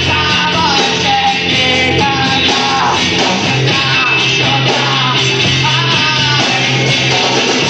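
Rock band playing live: electric guitar and bass under a singing voice, loud and continuous.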